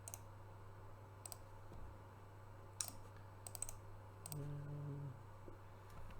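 A few sharp computer mouse clicks a second or so apart, one a quick double click, over a low steady electrical hum.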